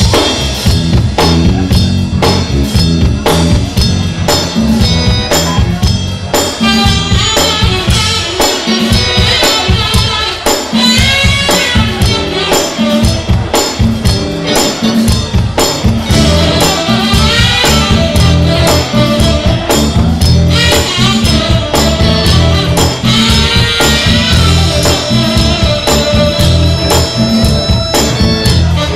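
Upbeat Motown-style soul music: a band plays a steady groove with drums, bass and tambourine, and a bending melodic lead line runs over it.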